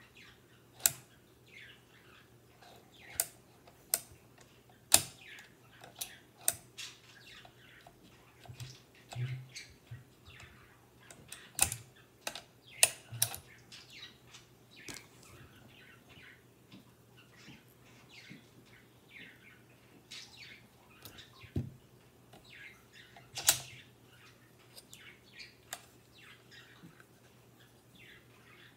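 Irregular sharp metallic clicks and clacks, a few much louder than the rest, from the custom slow-locking bolt of a Savage Rascal .22 rimfire bolt-action rifle being opened, closed and cocked by hand.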